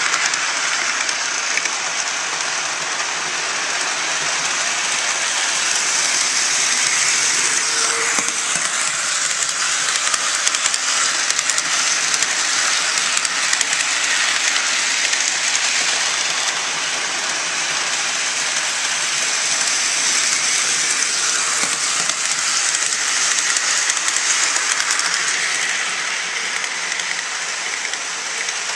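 HO-scale Bachmann GP38-2 model diesel locomotive running on track: a steady rattling rush of its wheels and motor on the rails, growing louder and softer by turns as it moves around the layout.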